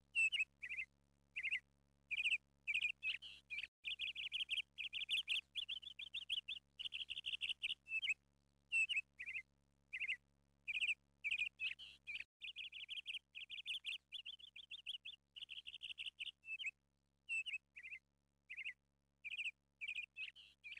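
Small bird chirping and trilling in short, high-pitched phrases repeated many times, with brief pauses between them.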